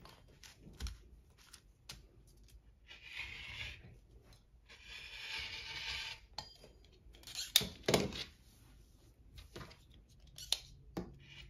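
Rotary cutter rolling through folded fabric on a cutting mat, in two scraping strokes of a second or so each. Then several sharp knocks and taps, the loudest about two-thirds of the way through.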